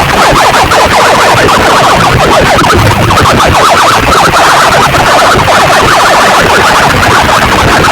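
Siren-like warbling effect played very loud through a competition DJ sound-box setup, a fast even warble repeating several times a second, heavily distorted.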